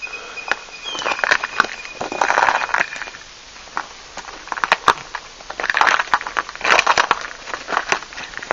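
Snow crunching underfoot in irregular bursts of crisp crunches and clicks.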